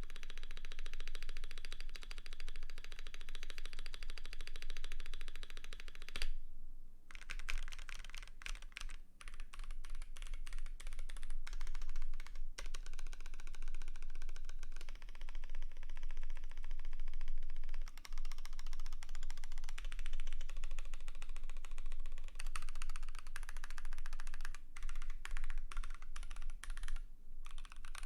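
Fast, continuous typing on a Keychron Q1 mechanical keyboard with lubed Gazzew Boba LT switches, PBT dye-sub keycaps and an aluminium plate, keys clacking in a dense stream. It breaks off briefly about six seconds in and again near the end.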